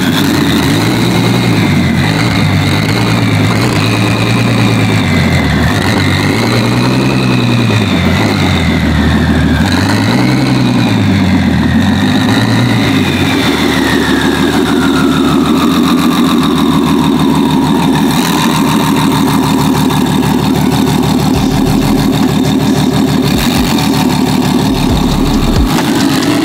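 Twin-turbocharged Ferrari F12's V12 engine running warm, its revs swelling up and down a few times, then settling to a steady idle about halfway through, with a high whine that sinks slowly as it settles.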